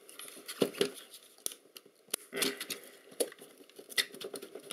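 Small clicks, knocks and scraping of plastic and aluminium lens-barrel parts of a Canon Epoca zoom lens as an outer sleeve is worked loose and slid off by hand. The handling noises come irregularly, with louder scrapes about half a second and two and a half seconds in.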